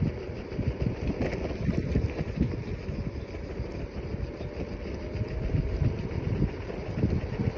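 A scooter riding along, with wind buffeting the microphone and a faint steady motor note that rises slightly in pitch midway.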